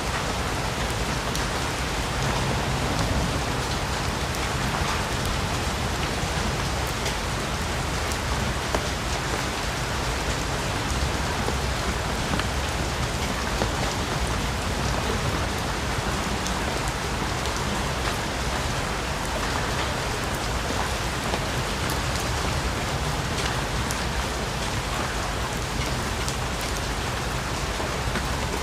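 Steady heavy rain falling on foliage, with scattered sharper drop ticks over an even hiss.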